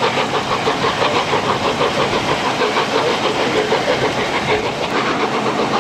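LNER A4 Pacific 60009 Union of South Africa's three-cylinder exhaust beating in a rapid, even rhythm as the locomotive works its train, heard from an open carriage window further back with wind and rail noise.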